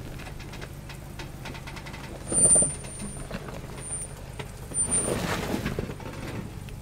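Lifted Ram Power Wagon pickup's V8 engine running at a low, steady crawl over rocks. A few brief high-pitched squeals come from the truck, and there are louder grinding swells of tyres and rock about two and a half and five seconds in.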